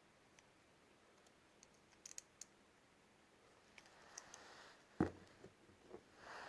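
Small plastic wrestling action figures being handled: a few light clicks, then one louder knock about five seconds in, followed by a couple of softer taps.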